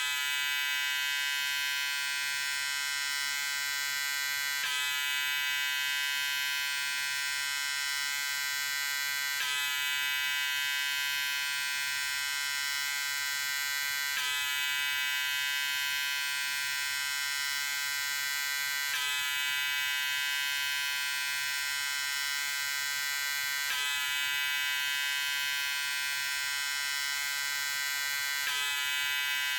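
Electric razor running with a steady, high-pitched buzz, with a slight click or shift about every five seconds.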